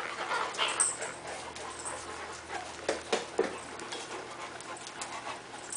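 Four-week-old Bullmastiff puppies and an adult Bullmastiff moving about, with faint panting and small whimpers. A few short knocks come a little after three seconds in.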